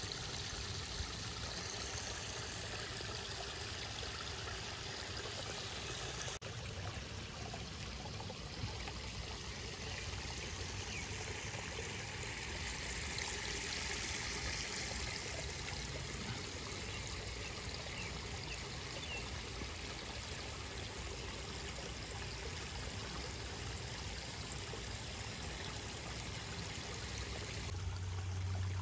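Water trickling and splashing steadily over the rocks of a garden pond's stream, a little louder and brighter about halfway through. A low steady hum comes in near the end.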